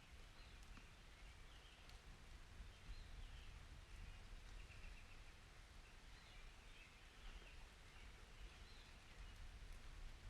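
Faint distant bird chirps over a low, steady outdoor rumble, near silence overall.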